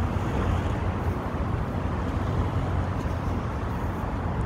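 Steady city street traffic noise: a low, even rumble with hiss and no distinct events.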